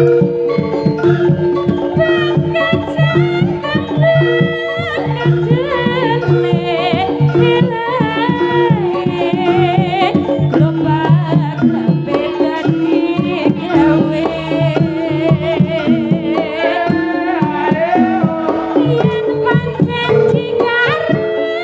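Javanese jaranan gamelan music: kendang hand drums keep a busy rhythm under repeating metal gong-chime notes, while a high melody wavers and ornaments above them.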